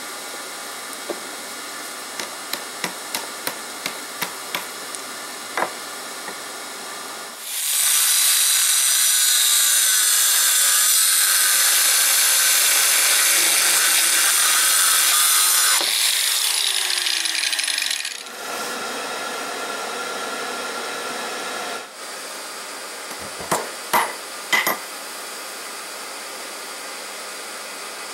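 Angle grinder with a cut-off wheel cutting through steel for about ten seconds, the loudest sound, then winding down. Before it, a run of light metallic taps. After it come a few sharp hammer blows on hot steel laid on a railroad-rail anvil, over a steady hiss.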